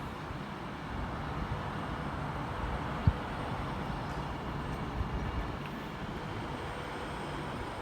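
Train running at a station platform: a steady rumble, with one sharp thump about three seconds in and a smaller knock about two seconds later.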